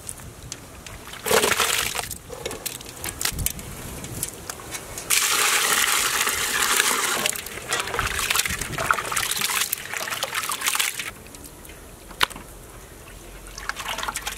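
Peeled prawns tipped from a metal tray into a large aluminium vessel of water, then washed by hand: water splashing and sloshing, with a short burst about a second in and a longer, louder stretch in the middle.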